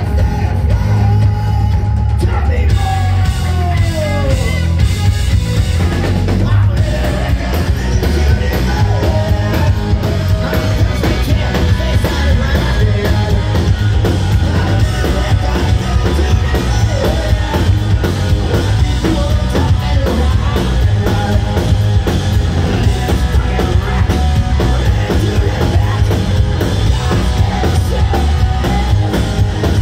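Live rock band playing loud through a PA, heard from the crowd: electric guitars, bass and a drum kit, with a lead singer singing and yelling into the mic. The low end is heavy and booming.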